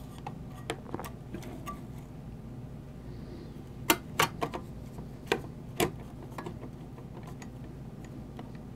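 Small clicks and taps of a thin metal heat-dissipation plate being set down and pressed into place in a laptop chassis. A few light ticks come at first, then a cluster of about six sharper clicks around the middle.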